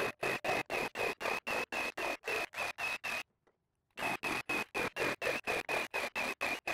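Ryobi P517 brushless reciprocating saw cutting through pine 2x4s, heard as an even train of short chopped bursts, about five or six a second, from sped-up footage. The bursts stop for about half a second a little past three seconds in, then resume.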